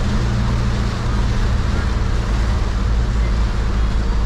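Heavy rain beating on a moving Toyota van's roof and windshield, heard inside the cabin as a steady hiss over the low hum of the engine and tyres on the wet road.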